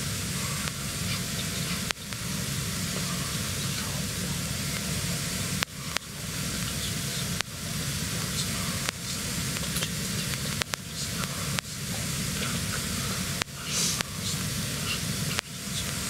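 Steady hiss of background noise, cut by several brief, sudden dropouts.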